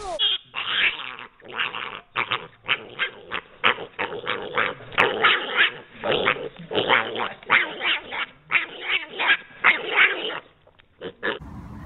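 Small pet pig squealing and grunting in many short bursts in quick succession.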